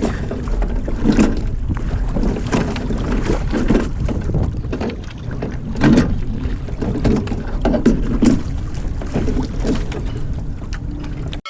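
Oars of a rowing boat dipping and splashing in the water in a steady stroke rhythm, about one stroke every second and a bit, under a constant wind rumble on the microphone.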